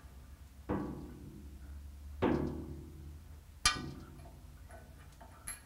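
Sharp metal knocks with a short ring, three of them about a second and a half apart and a fainter one near the end, as steel mounting bolts are worked up under a suspended cast-iron lathe bed and knock against it.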